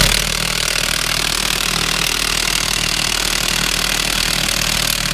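Impact wrench running continuously, driving the lug nuts onto the combine's front wheel hub. It starts abruptly and keeps going without a break.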